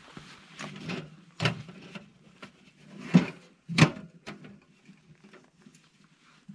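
A person moving about and handling camp gear: irregular knocks, scrapes and rustles, the sharpest knocks about three and four seconds in.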